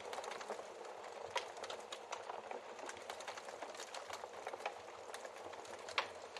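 Wood fire crackling steadily in a fireplace, with irregular small ticks and a few sharp pops of burning logs, the loudest pop near the end.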